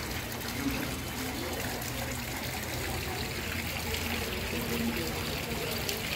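Decorative water feature trickling steadily, with faint voices in the background.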